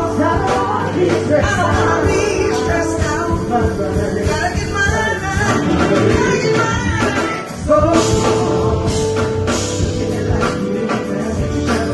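Music with a singing voice over a band and a drum beat, briefly dipping about seven and a half seconds in.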